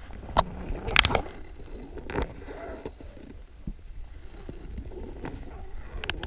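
Underwater sound picked up by a chest-mounted camera on a freedive: a steady low rumble of water and housing noise, broken by a few sharp clicks and knocks, the loudest about a second in. A faint series of short high beeps comes in the second half.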